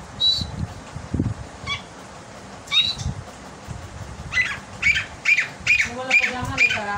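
Partridge chicks peeping: a few single high-pitched peeps, then a quick run of about two peeps a second in the second half.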